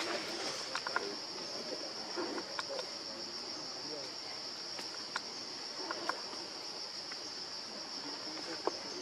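Steady high-pitched drone of insects, with a few faint scattered clicks.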